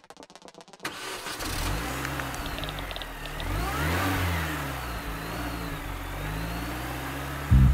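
Car engine sound effect under a logo animation: the engine starts and revs, its pitch rising and falling several times. About a second in it takes over from a fast ticking build-up, and heavy electronic beats cut in near the end.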